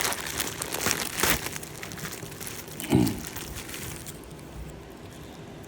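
Plastic packaging crinkling and rustling as it is handled and pulled off a new slingshot, dense in the first couple of seconds and thinning out after about four seconds.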